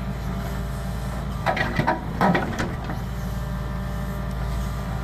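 Hitachi ZAXIS 170W wheeled excavator's diesel engine running steadily, with a few sharp knocks and scrapes between about one and a half and two and a half seconds in as the bucket works frozen, stony ground.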